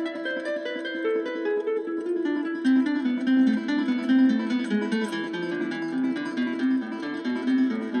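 Background music: a plucked acoustic guitar playing a quick melody.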